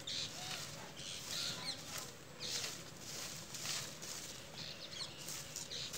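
Hand broom of dry grass stems sweeping leaves and dirt across bare earth ground, in short scratchy strokes about every half second.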